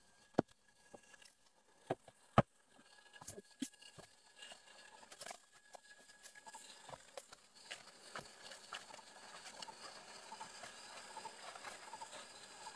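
Footsteps in rubber boots crunching through dry leaves and twigs, with a few sharp snaps in the first four seconds, then smaller, fainter rustles and ticks.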